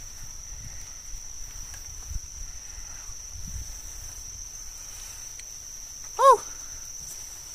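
Steady high-pitched insect trill from the roadside vegetation, over low wind rumble on the phone's microphone. About six seconds in, one short, loud squeak that rises and then falls in pitch.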